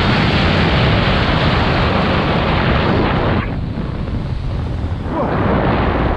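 Wind buffeting the microphone while skiing fast, over the hiss of Armada Declivity 92 Ti skis sliding and scraping across snow. The hiss drops away about three and a half seconds in and comes back about two seconds later, while the low wind rumble carries on.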